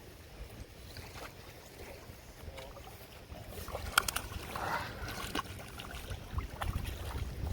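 Low wind rumble on the microphone, with a few sharp clicks about four seconds in and a short rustling noise just after.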